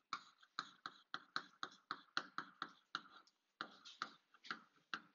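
Chalk tapping and scratching on a blackboard as letters are written: a quick, even run of short sharp taps, about four a second, with a brief pause just after three seconds.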